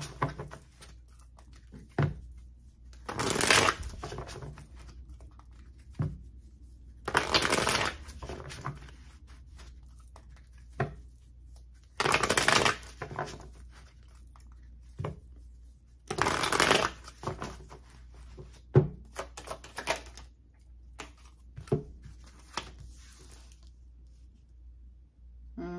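A deck of tarot cards being shuffled by hand in four bursts of rustling, each about a second long and a few seconds apart, with single sharp card taps in between.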